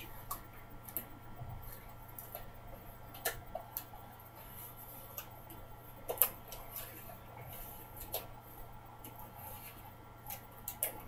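Latex surgical gloves being worked on the hands, giving irregular small clicks and snaps, with one louder snap about six seconds in.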